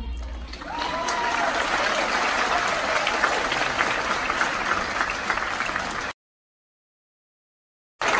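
Auditorium audience applauding, the clapping swelling in over the first second. The sound cuts to dead silence about six seconds in, and the applause returns just before the end.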